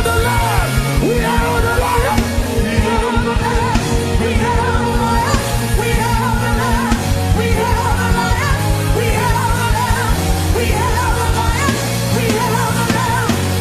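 Live gospel praise music: a band playing with a fast, steady beat and voices singing over it.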